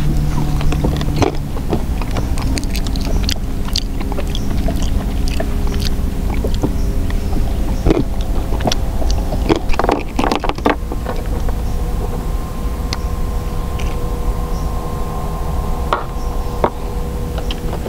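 A boat engine running steadily, a hum over a low rumble whose tones shift slightly about ten seconds in. Scattered clicks and a cluster of knocks come from handling fishing line and a catch in the boat.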